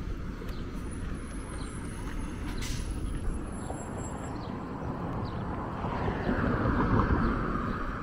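Articulated city transit bus driving past, its engine and road noise growing louder as it comes close, with a brief hiss about two and a half seconds in.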